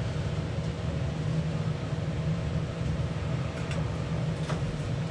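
Steady low droning hum of background machinery, with a couple of faint light clicks about three and a half and four and a half seconds in.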